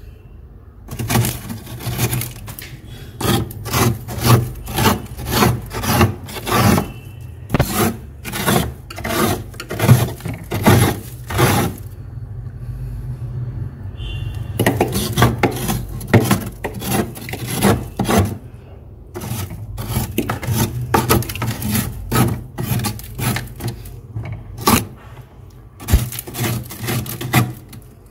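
Thick frost being scraped off the inside of a freezer with a hand tool: rasping strokes at about two a second, in runs broken by short pauses, over a steady low hum.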